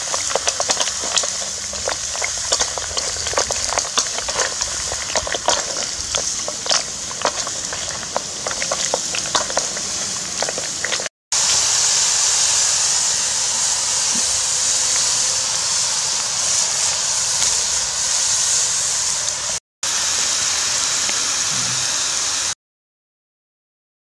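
Snails in their shells clattering against a metal wok as they are stirred with a ladle and spatula over a wood fire, many sharp clicks over a sizzling hiss. After a cut about eleven seconds in, a steady sizzling hiss as the seasoned snails fry and steam in the wok, cutting to silence near the end.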